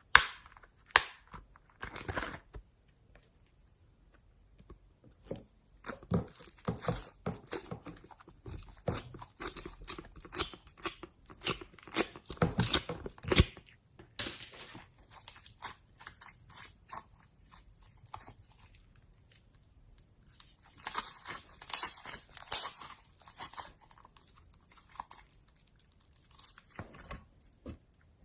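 Slime being squeezed, poked and stretched by hand, making sticky crackling and popping clicks in irregular bursts with short pauses.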